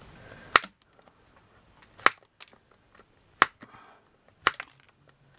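Small metal side cutters snipping off the protruding ends of wooden skewer sticks: four sharp snaps, one every second or so.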